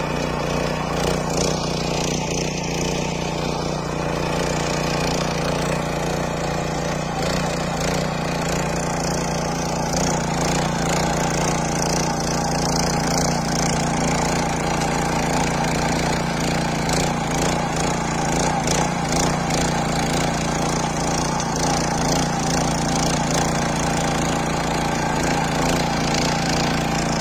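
Small 5.5 hp engine of a walk-behind rotary tiller running steadily under load as its tines dig through the soil.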